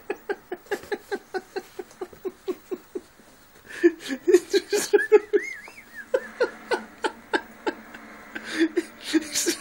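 A person laughing: an even run of short breathy 'ha' pulses, about four a second, for the first three seconds, then louder, more uneven laughter from about four seconds in.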